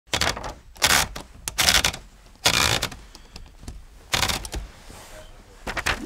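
Manual typewriter being worked: about half a dozen loud mechanical clacks and rattles at uneven intervals, with lighter clicks between.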